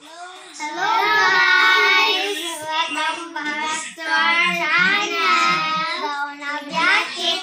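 Children singing, in drawn-out phrases of held and gliding notes, with short breaks about four and six seconds in.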